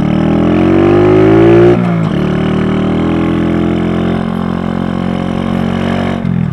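SSR Razkull 125 pit bike's single-cylinder four-stroke engine under way. The revs climb for almost two seconds, then drop sharply as it shifts up, and the engine pulls steadily, rising slowly, until the revs drop again near the end.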